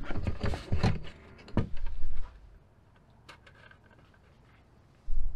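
Handling noise as a plastic-cased solar charge controller with a finned metal heat sink is picked up and turned over on a tabletop: a cluster of knocks and rubbing for about two seconds, then quiet with a few faint clicks. A low rumble starts near the end.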